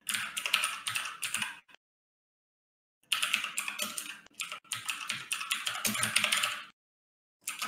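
Computer keyboard typing in quick runs of keystrokes: a spell of about a second and a half, a pause, a longer spell of about three and a half seconds, then a few more keystrokes near the end.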